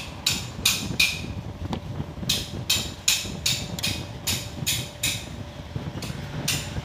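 Rapid hammering, about three sharp blows a second, with a pause of about a second near the start.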